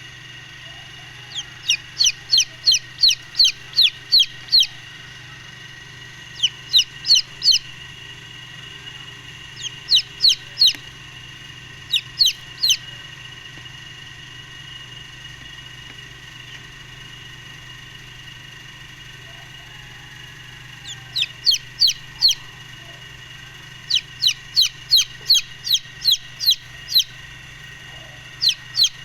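Golden Misri baby chicks peeping: bursts of short, high, falling peeps about three a second, with pauses of a few seconds between bursts, over a steady background hum.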